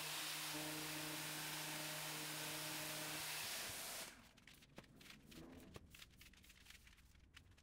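Random orbital sander running on a cured epoxy and wood table top, a steady hum that cuts off abruptly about four seconds in. After that there are only faint rustles and light ticks.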